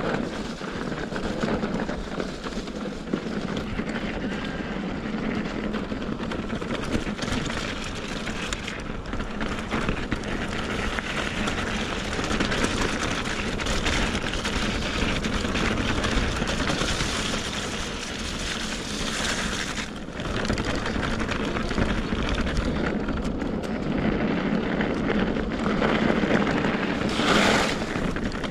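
Wind buffeting a helmet-mounted action camera's microphone with the rumble of mountain bike tyres rolling over the trail, steady throughout.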